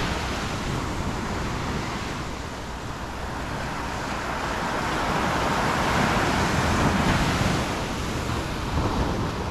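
Ocean surf: small waves breaking and washing up a sandy beach, a steady rush that swells and eases.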